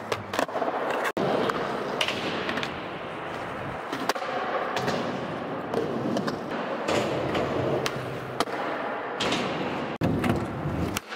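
Skateboard wheels rolling on pavement, with repeated sharp clacks and knocks from the board being popped and landed.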